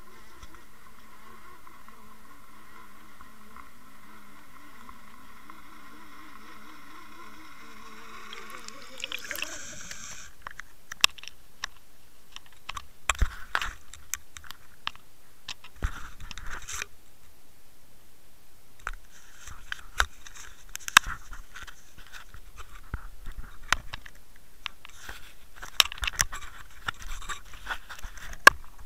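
A steady, wavering hum with a higher whine picked up by a Water Wolf HD underwater fishing camera while submerged. About ten seconds in, it gives way to irregular knocks, scrapes and crunches as the camera is pulled from the water and handled on the bank.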